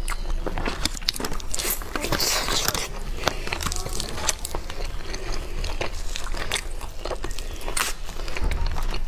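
Close-miked eating of roast chicken legs: biting and chewing, with the meat being torn apart by hand and many small sharp crunches and crackles from the skin.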